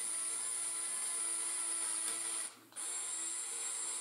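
Small electric motor and gearing of a brick-built RC fire truck running steadily with a high whine, turning the ladder turntable. It stops briefly about two and a half seconds in, then starts again.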